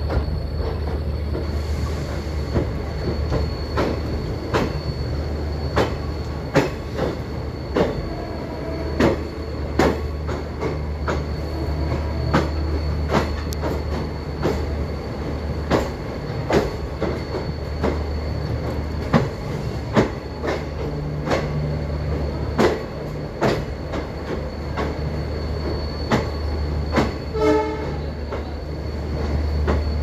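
Passenger train coaches running at speed: a steady low rumble with regular wheel clicks over rail joints, about one click a second, and a faint high whine. A short pitched tone sounds near the end.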